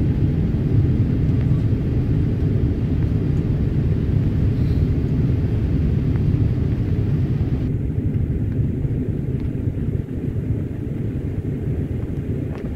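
Boeing 787-8 Dreamliner cabin noise at a window seat over the wing while climbing after takeoff: a steady deep rumble of engines and airflow. The higher hiss eases a little about two thirds of the way through.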